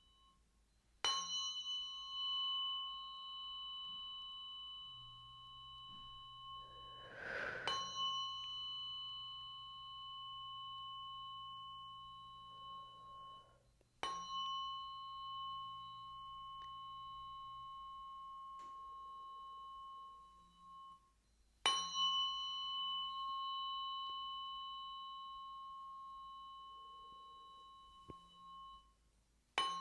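Biofield tuning forks struck five times, about every seven seconds, each strike ringing on as a clear high tone that slowly fades.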